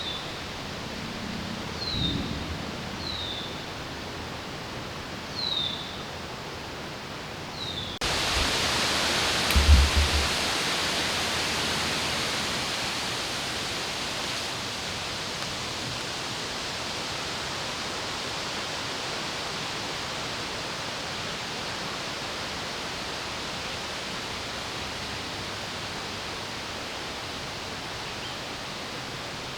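Wind rushing through the park, with a bird repeating a short falling chirp over the first several seconds. About eight seconds in, the wind noise jumps up suddenly with a few low thumps, then stays loud and steady.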